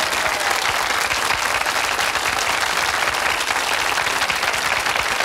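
Studio audience applauding: many people clapping steadily.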